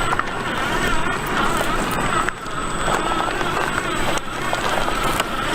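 Electric motor of an RC4WD Desert Runner 1/10 scale RC truck whining, its pitch rising and falling with the throttle, over a steady crackling of the tyres on loose ground with scattered small clicks.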